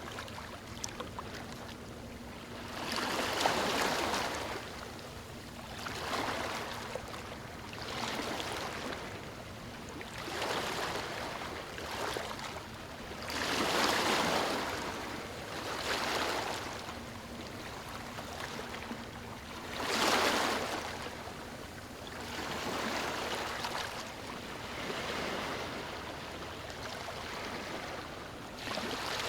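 Small waves washing onto a beach, a steady hiss of water that swells and fades again every few seconds.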